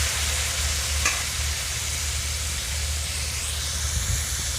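Raw papaya pieces sizzling steadily as they fry in hot mustard oil in a kadai, with a brief click about a second in.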